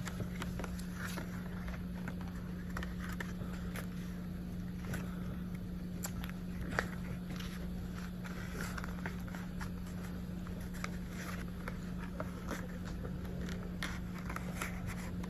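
Plastic packaging of a trading card pack being handled and pried at: scattered crinkles, scrapes and small clicks, one sharper click about seven seconds in, over a steady low hum.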